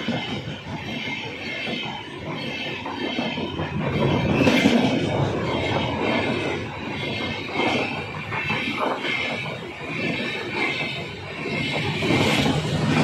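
Passenger train coaches rolling past at close range: steel wheels rumbling and clattering on the rails, swelling into louder clatter a few times as wheel sets pass.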